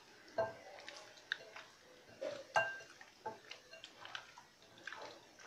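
Hand kneading chicken pieces in yogurt and spices in a glass bowl: irregular soft knocks and taps against the glass, a couple of which ring briefly.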